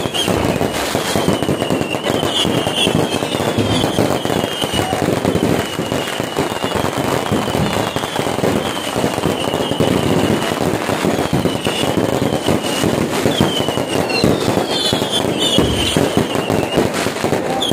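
Fireworks display: dense, continuous crackling and popping of bursting shells and firecrackers, with short high falling whistles repeating over it.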